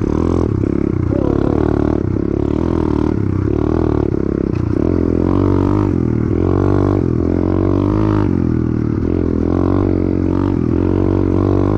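Apollo RFZ 125 pit bike's single-cylinder four-stroke engine revving up and down again and again under throttle while being ridden.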